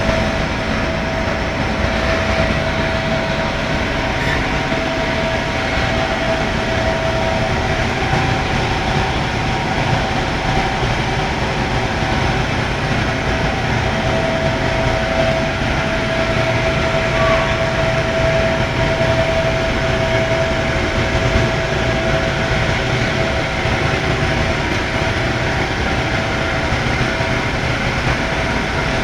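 Furnace running: a steady rumbling roar with a constant mid-pitched hum through it.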